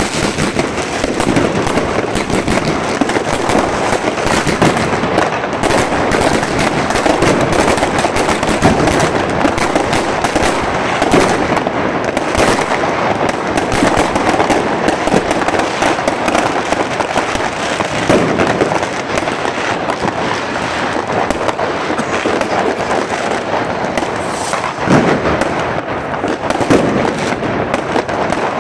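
Consumer New Year's fireworks: many rockets and aerial bursts going off at once, their bangs and crackles overlapping into a continuous barrage with no break.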